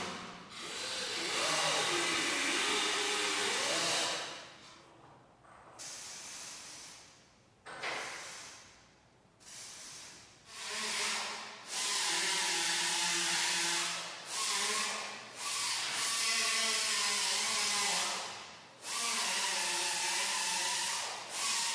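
A small electric cutting tool cutting woven fiberglass cloth, giving a hissing whir over a steady hum. It runs in bursts of a few seconds, stopping and starting, with the longest run in the second half broken by brief dips.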